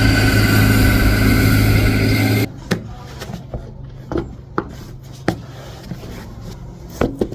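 A motor vehicle's engine running steadily with a strong low hum, cutting off suddenly about two and a half seconds in; after that a quiet room with a few scattered light knocks and clicks.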